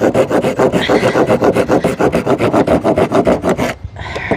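Hand pruning saw cutting a notch into a wooden board, quick, even back-and-forth strokes several times a second, stopping near the end.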